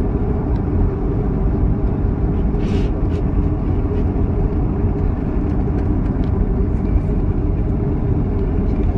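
Steady low rumble inside the passenger cabin of a Boeing 737 rolling along the runway after touchdown: engine noise and wheel rumble together. A few faint clicks, and a short hiss about three seconds in.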